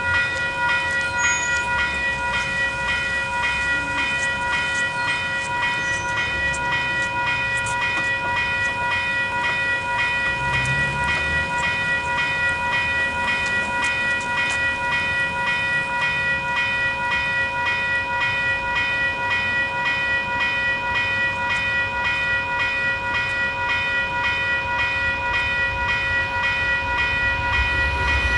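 WCH type 2 electronic railroad crossing bell, a tone the uploader calls sick, ringing continuously in a fast, even repeat while the crossing is active. A low rumble builds near the end.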